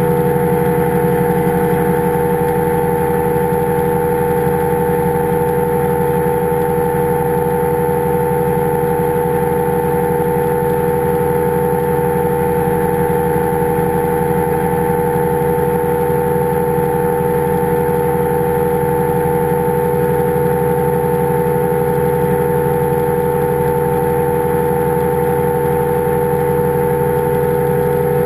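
Powered parachute's engine and pusher propeller running at a steady cruise setting in flight: a loud, continuous drone that holds one pitch, heard close from the airframe.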